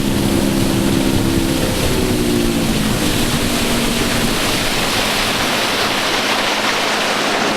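Boat's outboard motor running at speed across the water, its engine tone shifting slightly in the first few seconds, under a loud rush of wind and water.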